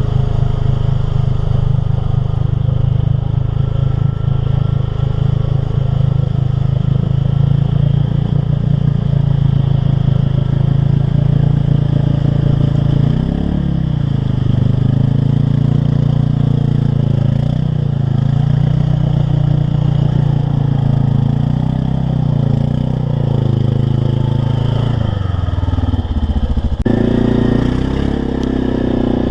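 Loud engine of a mud-bogging vehicle under hard throttle, holding a steady high-rev note, then revving up and down repeatedly from about halfway through, with the note changing sharply near the end.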